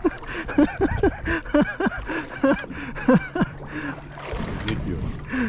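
Short, indistinct voiced calls and exclamations over the wash of water and boat noise, with a steady low hum starting about three seconds in.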